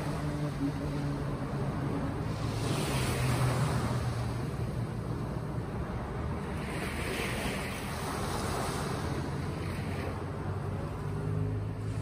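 Sea waves breaking and washing in, the surf swelling every few seconds, with a faint low steady hum underneath.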